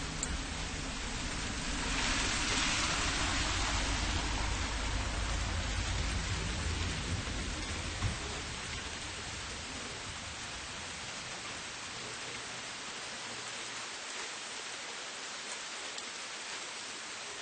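Steady rain on a city street with light traffic. About two seconds in, a vehicle's low rumble and wet-road hiss swell up, then fade away over the next several seconds, leaving the rain alone.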